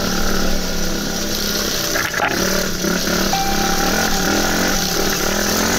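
Enduro dirt bike engine running while riding, with a brief dip in its note about two seconds in.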